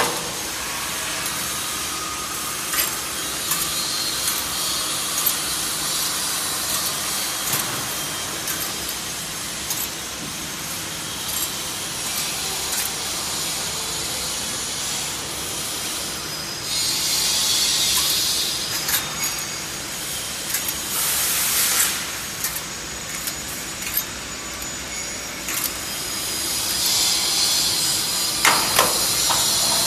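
Bonnell spring assembly machine running as it laces coil springs together: steady mechanical clatter with many sharp clicks, and several bursts of high hiss around the middle and near the end.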